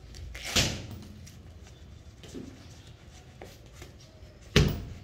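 Gloved strikes landing on a sawdust-filled hanging heavy bag: two loud thuds about four seconds apart, with a few light knocks between them.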